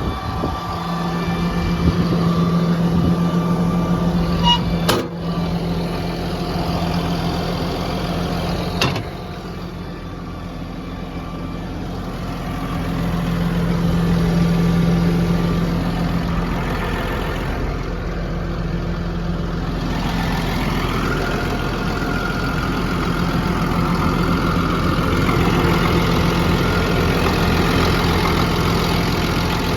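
Caterpillar D6N bulldozer's diesel engine idling steadily, with two sharp clicks about five and nine seconds in.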